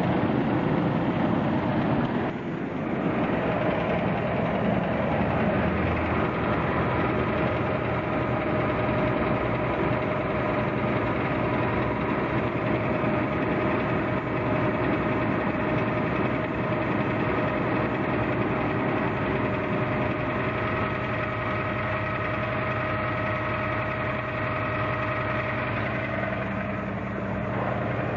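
Toyota 4Runner engine idling with a fast, even knock running through it, which a dealership has said might be rod knock.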